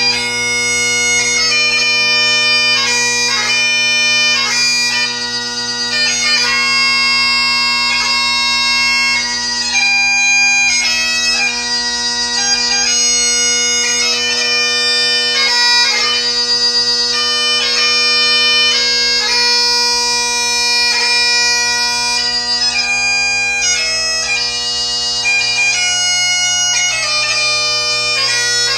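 Great Highland bagpipe played solo: steady drones sounding underneath a chanter melody that moves quickly from note to note, with many brief grace notes between them.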